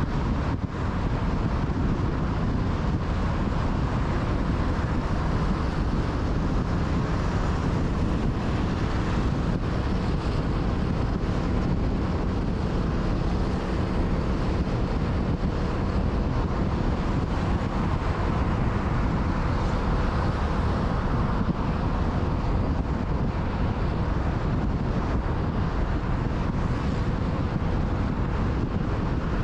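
Steady road and wind noise of a car driving at motorway speed, with wind rushing over the microphone.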